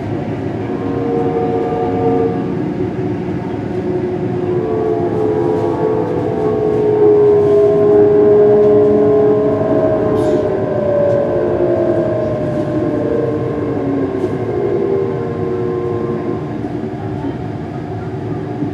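Inside a Class 385 electric multiple unit on the move: a steady rumble of wheels on rail under the whine of the traction motors, whose tones drift in pitch as the train runs into a station and slows. The sound is loudest about halfway through.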